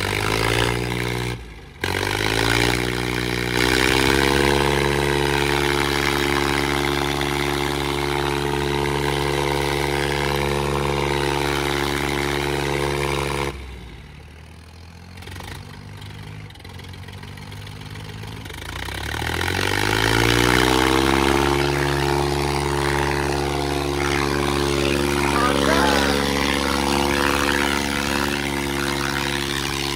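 Diesel engines of an Eicher 557 and a Sonalika 750 tractor pulling against each other under full load in a tug-of-war. The revs climb to a steady high pitch, fall away sharply about halfway through, then climb again and hold.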